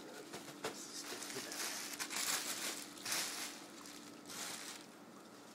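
Clear plastic sterile microscope drape crinkling and rustling as it is handled and rolled up, in several uneven rustles that are loudest around the middle, over a faint steady hum.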